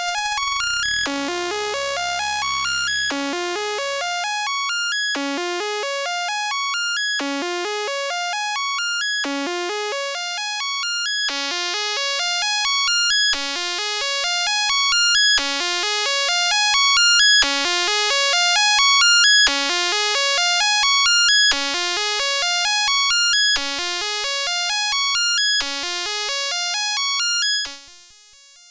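Moog Spectravox analogue synthesizer, one oscillator through its filter, playing a short stepped note phrase that repeats about every two seconds in a bright, buzzy tone. There is a low held note in the first few seconds. The tone grows brighter toward the middle, and the sound drops away just before the end.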